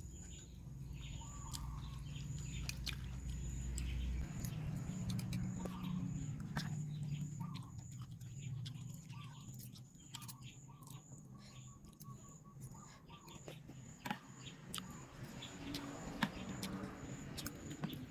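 Quiet eating sounds, with scattered spoon or bowl clicks and chewing, over birds chirping in the background. A low rumble stops about four seconds in.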